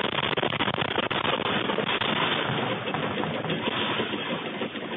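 A room shaking in an earthquake: a dense, continuous rattling and clattering, picked up by a security camera's microphone, that eases slightly near the end.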